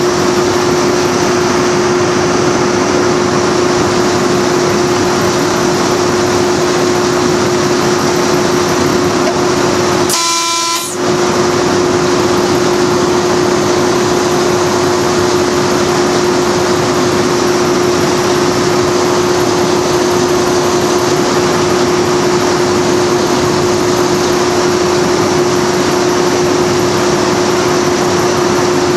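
Class 37 diesel locomotive running along the line, a steady rushing drone with a constant hum. About ten seconds in its horn gives one short blast of under a second.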